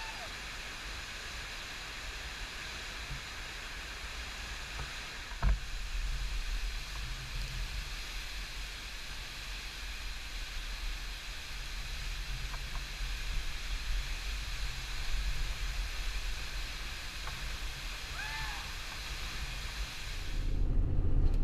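Steady rushing noise with a low rumble underneath, a single sharp click about five seconds in, and a couple of short bird chirps near the end.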